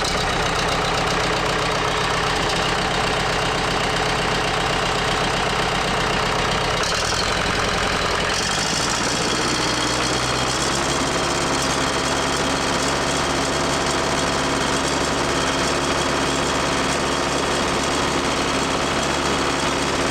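Case 430 skid steer's four-cylinder diesel engine running steadily just after start-up, freshly fitted with a new injector to cure a stuck one. Its note shifts to a lower, steadier speed about eight to ten seconds in.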